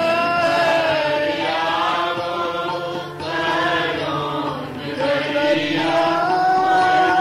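A devotional hymn chanted by a voice in long, held notes that glide from pitch to pitch, over musical accompaniment. The phrase breaks briefly about three seconds in and again just before five seconds.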